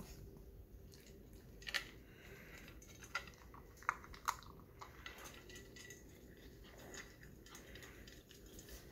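A puppy eating from a metal food bowl: irregular crunching and clicking of food and teeth against the bowl, with a few sharper clinks near two seconds in and again around four seconds in.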